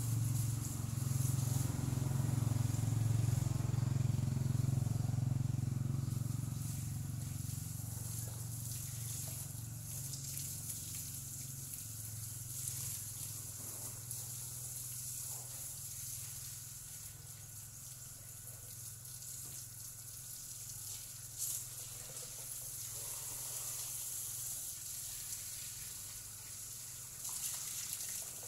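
A low mechanical hum, loudest for the first several seconds and then fading away, over a faint steady outdoor background hiss.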